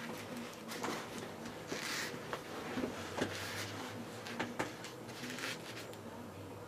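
Rustling and scuffing of foam-backed upholstery panels being handled and slid into place on a sewing machine bed, with scattered light clicks.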